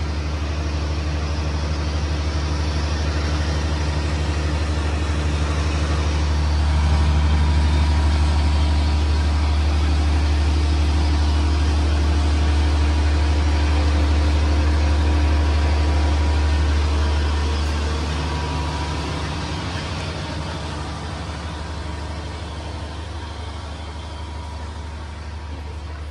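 Steady low rumble with a faint hum, the outdoor din of a cruise ship heard from a cabin balcony. It grows louder for about ten seconds in the middle, then slowly fades in the last third.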